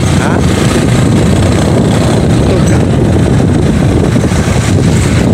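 Loud wind buffeting the phone's microphone while riding a motorcycle, with the motorcycle's engine running underneath.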